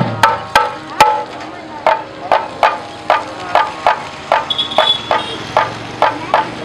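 Procession drum beaten in a steady rhythm, about three sharp, briefly ringing strokes a second, with no melody playing over it.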